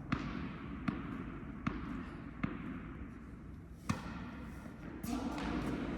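Tennis ball struck or bounced on an indoor court, five sharp knocks that echo in the hall. The first four come at an even pace, under a second apart; the last and loudest comes about four seconds in.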